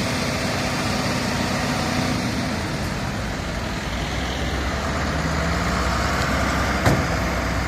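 Road traffic passing, with heavy vehicles' engines running, a low engine hum building about halfway through. A short knock near the end.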